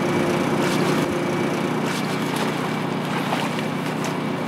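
Engine of a water-jet stake-driving rig running steadily at a constant pitch. It powers the pump that forces water into the sand to sink wooden mussel (bouchot) stakes.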